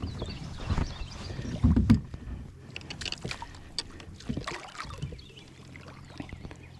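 Handling noise on a kayak while a hooked largemouth bass is fought to the boat: irregular knocks and clicks, with a heavier low thump about two seconds in.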